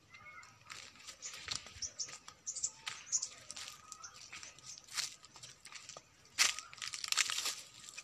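Dry grass, leaves and stalks rustling and crunching in irregular bursts, as if brushed through and trodden on, heaviest in the last two seconds.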